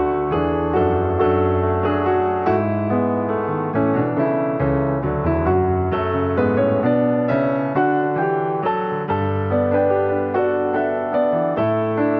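Piano music: a steady run of notes over sustained low bass notes.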